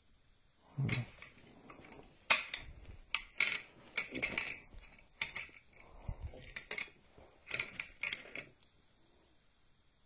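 Speargun's modified trigger mechanism and steel shaft being handled: a series of sharp metallic clicks and short rattles at uneven intervals.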